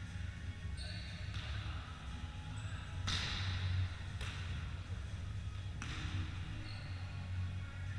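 A volleyball struck by players' hands about four times, sharp slaps that echo through the sports hall, the loudest about three seconds in, over a steady low hum.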